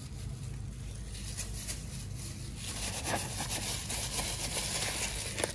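A hand in a plastic glove rubbing seasoning paste over a raw whole fish in a bowl: wet rustling and crinkling with small clicks, starting about halfway through, over a low steady hum.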